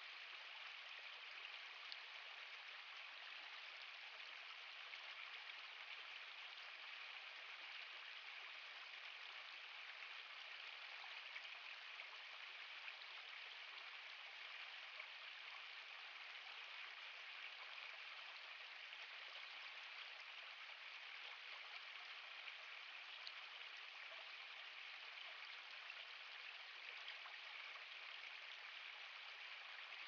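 Shallow, rocky forest stream running over stones and a small step, a faint, steady rush of water.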